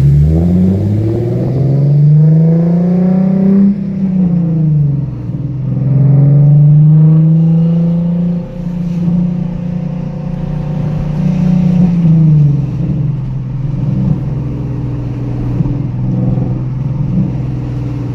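Nissan 370Z's V6 engine pulling away under acceleration: its pitch climbs, drops at a gear change about four seconds in, climbs again and holds steady as the car cruises. About twelve seconds in the pitch falls to a lower steady drone as the engine eases off.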